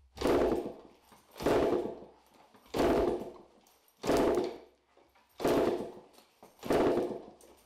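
A 2004 KTM 85 SX's 85 cc two-stroke single being kicked over with a compression tester in the spark-plug hole, so it turns over without firing: six kicks about 1.3 seconds apart, each a sudden rush of the engine spinning that dies away within half a second. This is a compression test of the top end.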